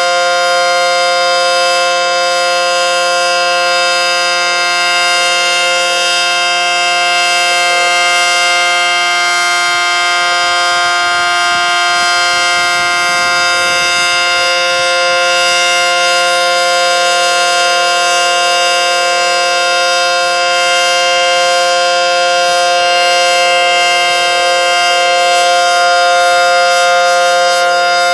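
ACA Banshee 115 tornado siren sounding a steady tone, holding one pitch without rising or falling.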